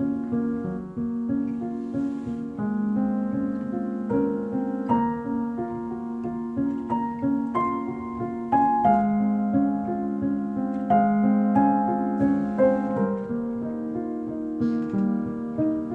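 Piano music played back through Tang Band W4-2142 4-inch full-range drivers in small bass-reflex cabinets and picked up by microphone, a steady run of sustained notes.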